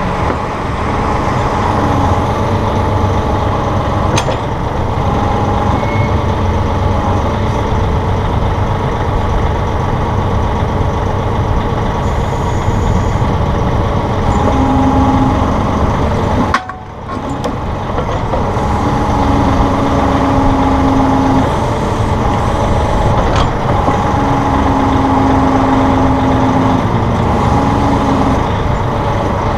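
Massey Ferguson 1742 compact tractor's diesel engine running steadily while the backhoe's hydraulics are worked, with whining tones that come and go every few seconds as the hydraulic functions are moved.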